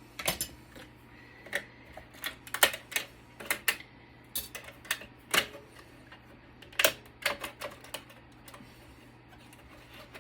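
Irregular sharp clicks and clacks of small metal parts and tools being handled while a network switch is taken apart, about fifteen knocks spread unevenly, over a faint steady hum.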